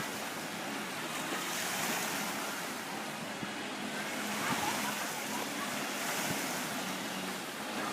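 Ocean surf washing steadily, swelling and easing, with wind.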